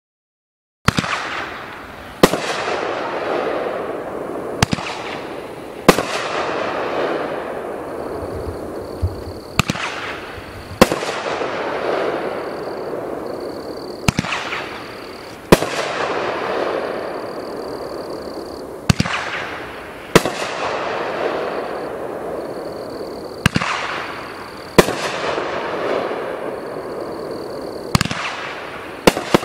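Big Fireworks 'Cowboy Chaos' 8-shot, 500-gram fireworks cake firing its shots one at a time. Each shot is a sharp launch thump followed about a second and a half later by a loud aerial burst, then a long fading crackle. This repeats seven times, roughly every four to five seconds.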